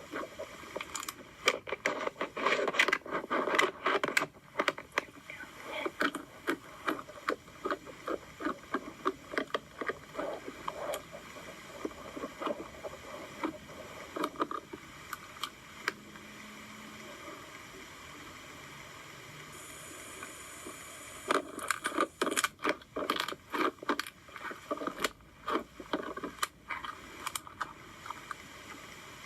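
Slime being squished and worked by hand: runs of wet popping and crackling clicks, with a quieter lull of several seconds in the middle.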